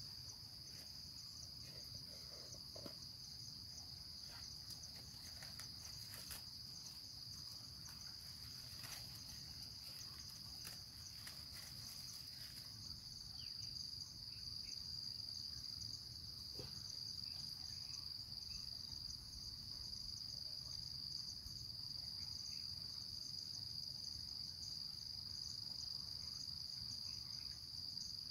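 A steady, high-pitched chorus of insects, like crickets, chirring without pause, a little louder in the second half. Faint clicks and rustles come through in the first half.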